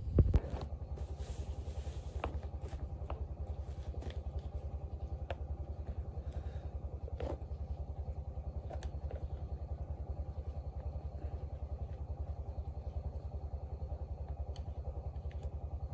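An irrigation pump's engine running steadily with an even, rapid low pulse. A few faint clicks of chopsticks against a bowl.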